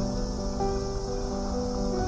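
Background music: calm, held melodic notes that change every half second or so.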